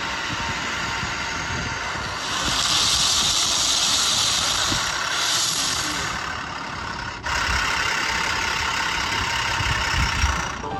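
Engine-like vehicle noise with a hiss that swells for a few seconds, changing abruptly about seven seconds in.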